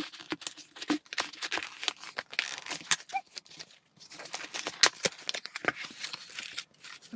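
Cardboard shipping box being opened by hand: flaps pulled back and cardboard and paper handled, making irregular rustling, scraping and crackling with many sharp clicks.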